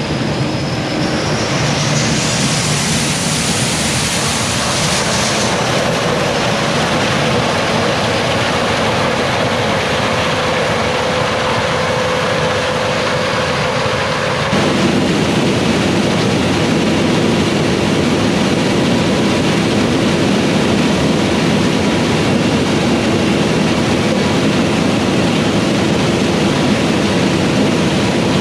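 Fendt Ideal 8 combine harvesting corn, a loud, steady machine noise that shifts abruptly in tone about halfway through.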